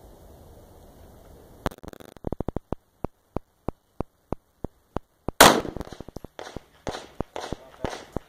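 Handgun shots: one a little under two seconds in, the loudest about halfway through, then several more in quick succession near the end, with a run of short sharp clicks between the early shots.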